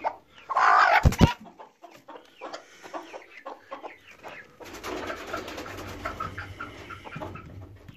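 Broody hen clucking on her nest while her eggs are handled. There is one louder call about half a second in, then quieter clucks, and a run of rapid soft clucking from about five seconds in.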